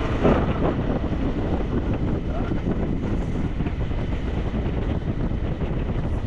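Motorcycle engine running at a steady cruising speed, with wind rushing over the helmet-mounted or action-camera microphone.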